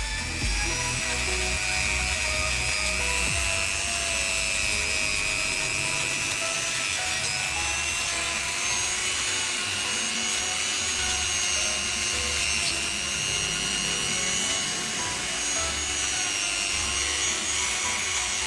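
Handheld rotary tool running at a steady high whine as its small bit grinds and sands the inside of a teak root.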